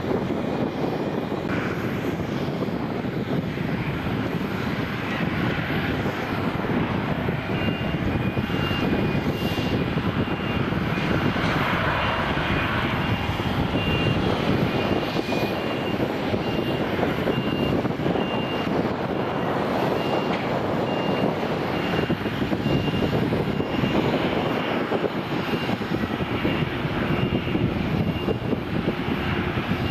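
Boeing 737-800's CFM56 jet engines running steadily as the airliner rolls along the runway after landing.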